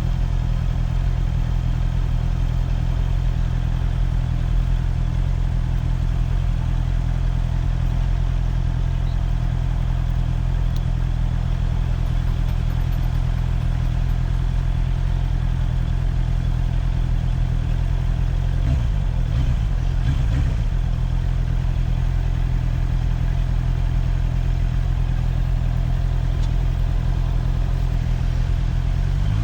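Motorcycle engine idling steadily, with a brief rise and fall in pitch about two-thirds of the way in.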